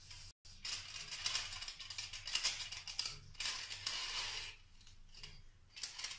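Aluminium foil crinkling and rustling as wooden ice-cream sticks are pushed through slits in foil-covered glasses, with a couple of small clicks near the end.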